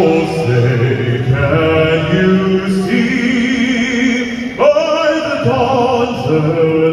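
A man singing the national anthem solo through an arena sound system, holding long notes with vibrato and moving slowly from note to note.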